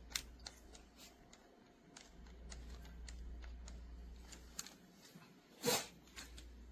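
Faint scattered clicks and handling noise over a low hum, with one louder rustling burst about two-thirds of the way through.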